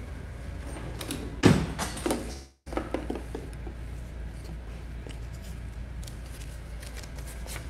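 Paper being handled on a desk: a few knocks and rustles, the loudest about a second and a half in, then faint ticks, over a steady room hum.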